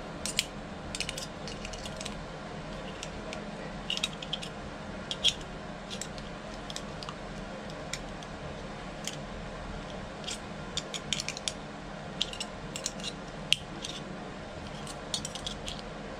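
Irregular sharp metallic clicks and clinks of a storeroom-function door knob lockset being handled and its parts worked by hand, over a steady low hum.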